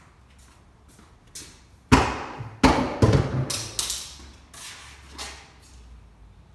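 A run of loud thumps and knocks, about five within two seconds, each ringing briefly in an empty concrete-floored garage.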